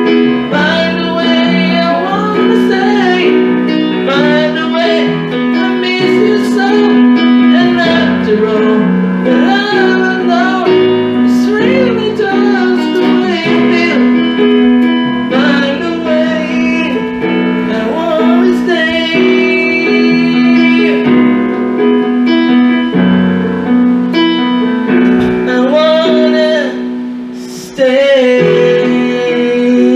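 A man singing with vibrato, accompanying himself on an electronic keyboard playing sustained chords; he holds a long note near the end.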